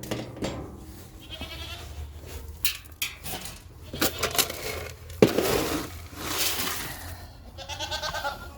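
Boer goats bleating now and then, among sharp knocks and a rattling clatter of feed being scooped, loudest just after a hard knock about five seconds in.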